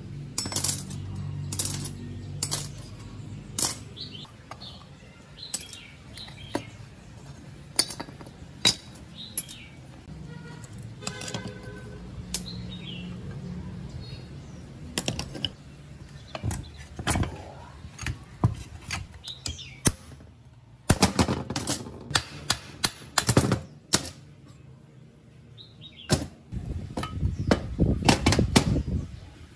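Metal parts of an old air-compressor electric motor clicking, clinking and knocking as the motor is taken apart on a steel diamond-plate bench, as single clicks and knocks. The clatter is densest in two spells, about two-thirds of the way through and again near the end.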